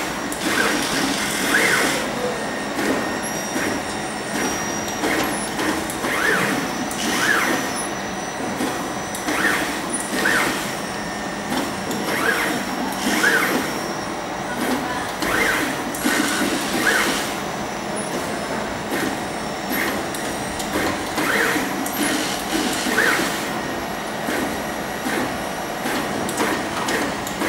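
Reflow oven running with its wire-mesh conveyor belt moving: a steady whir with short squeaks that come back roughly once a second.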